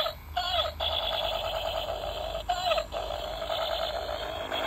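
Electronic sound effect of a battery-powered toy M16 rifle: a fast, buzzy electronic rattle. It is cut about every two seconds by a short swooping tone before it starts again.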